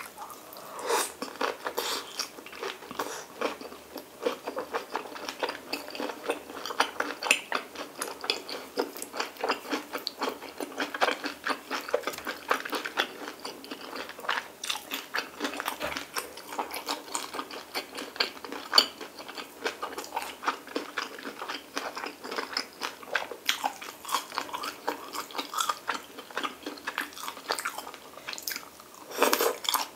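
A person chewing pork belly and stir-fried kimchi: rapid, irregular mouth clicks and smacks, with a louder stretch just before the end.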